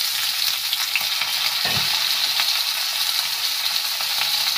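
Freshly added potato slices, flat beans and tomato sizzling in hot mustard oil in a steel kadhai, a steady frying hiss, with a soft knock a little under two seconds in.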